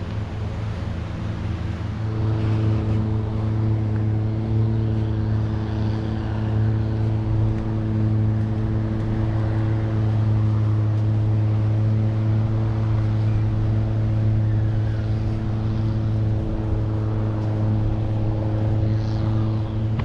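Boat engine running at a steady speed, a low drone of unchanging pitch that grows louder about two seconds in, with wind on the microphone.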